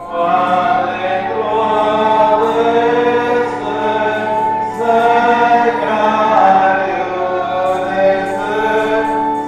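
A choir singing a slow melody in long held notes, with a brief pause between phrases about halfway through.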